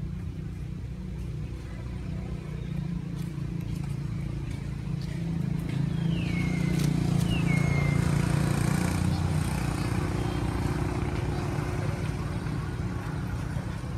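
A steady low engine drone with a constant pitch, growing louder towards the middle. About six and seven and a half seconds in come two short, high squeals, each falling in pitch.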